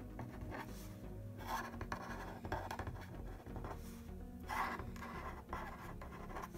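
Marker tip scratching across paper in a series of short strokes as cursive lowercase k's are written, with background music underneath.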